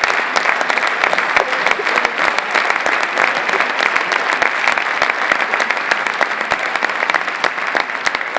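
Large audience applauding: dense, steady clapping that tails off slightly near the end.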